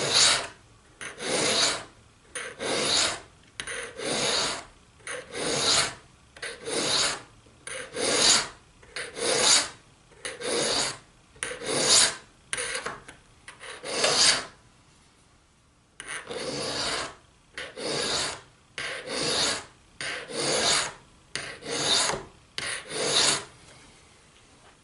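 A 10-inch hand file rasping back and forth along the edge of a steel broadhead, about one and a half strokes a second with light pressure, sharpening the blade. The strokes pause briefly a little past halfway, then start again.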